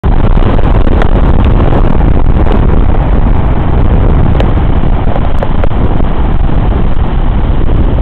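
Wind buffeting the camera microphone in a loud, steady rumble, with a few faint clicks now and then.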